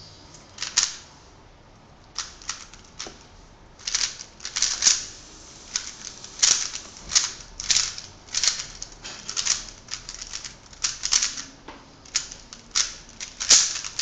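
Fast, irregular bursts of plastic clicking and clacking from a 3x3 speed cube (a Park Signature Edition) being turned during a timed speedsolve, with brief pauses between the bursts.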